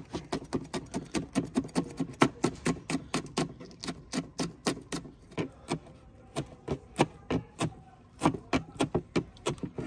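Large kitchen knife chopping green chillies and fresh coriander on a wooden cutting board: a quick, even run of sharp knocks of the blade on the board, about four a second, with a couple of brief pauses.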